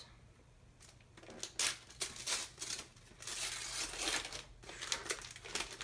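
Gift wrap being torn open and crinkled by hand, a quick run of rips and rustles starting about a second in.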